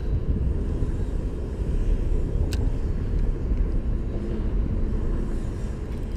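Steady low rumble with one short, sharp click about two and a half seconds in.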